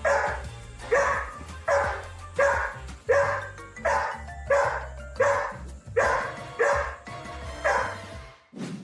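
A dog barking again and again at an even pace, about one bark every 0.7 seconds, over background music with a low bass line.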